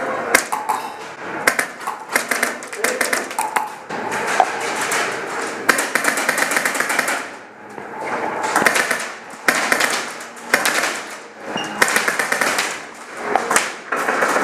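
Airsoft guns firing in rapid bursts of sharp clicks, with voices in the background.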